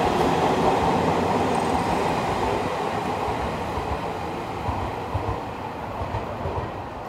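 Nankai electric commuter train pulling out of the platform and moving away, its wheels running on the rails with a clickety-clack; the noise fades steadily as it recedes.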